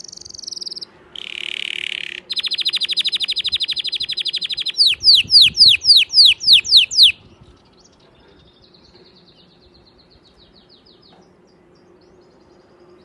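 Domestic canary singing a loud song of changing phrases: a wavering whistle, a short buzz, a rapid trill, then about eight loud downward-sweeping notes at roughly four a second, which are the loudest part. The song ends with a softer, shorter trill and fades out about eight seconds in.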